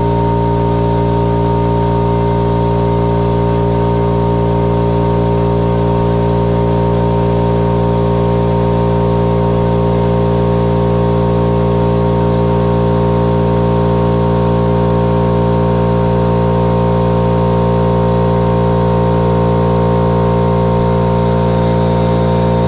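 Makita MAC5200 electric air compressor running, its motor and pump holding a steady, unchanging hum at constant pitch.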